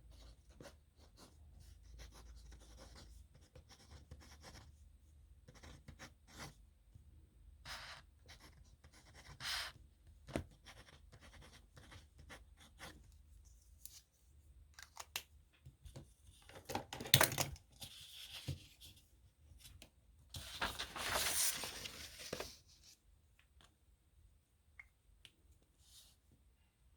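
Pen writing on paper: a run of short scratchy strokes as a signature is written by hand. There is a louder scrape about 17 seconds in and a longer, louder scratching stretch a few seconds later.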